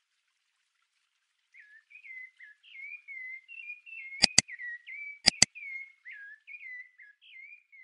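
A run of short chirping whistles, each a quick little glide in pitch, starts about a second and a half in and goes on throughout. Two quick double mouse-clicks, about four and five seconds in, are the loudest sounds.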